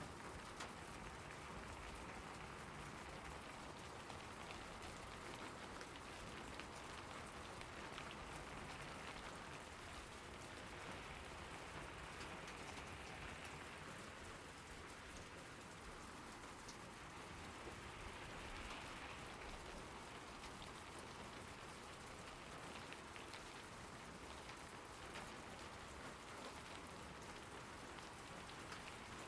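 Steady rain falling on surfaces, a dense patter of drops without thunder.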